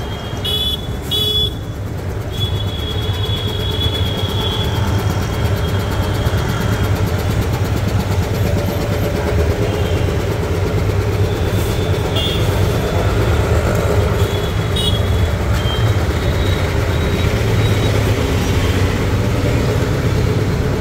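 Busy street traffic with a steady low drone and short car-horn toots, two quick ones near the start and a few more scattered later.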